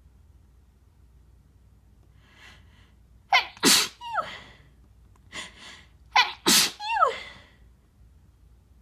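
A person sneezing twice, about three seconds apart, with the sneezes induced with a tissue. Each sneeze comes after a short breathy inhale and ends in a voiced sound that falls in pitch.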